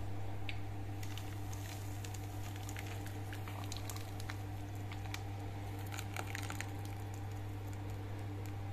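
Thick batter being poured from a bowl into a baking dish of pitted cherries, with small wet squishing and pattering sounds and scattered light clicks, over a steady low hum.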